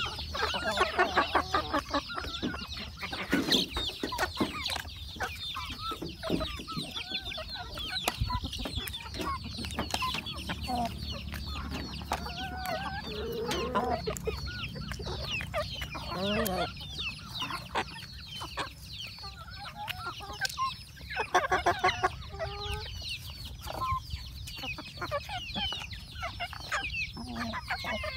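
Several chickens clucking as they feed, loudest about a second in and again about twenty-one seconds in, over continual high chirping.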